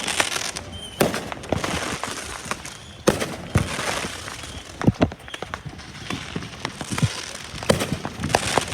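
Fireworks going off: sharp bangs and pops at irregular intervals, with crackling in between.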